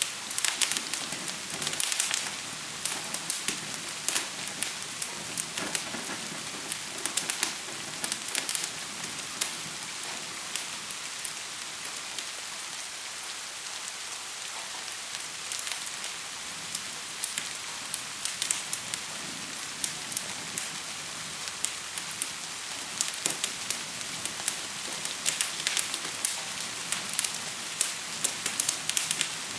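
Steady gentle rain hiss with a wood fire crackling over it; the crackles come in quick clusters, thinning out for a stretch in the middle.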